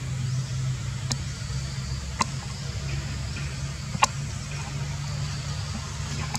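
A steady low mechanical hum, like an engine running, with three sharp clicks about one, two and four seconds in, the last one the loudest.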